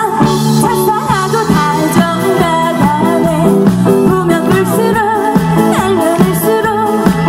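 Live band playing a Korean trot song: a woman singing into a microphone over electric guitar and a drum kit keeping a steady beat.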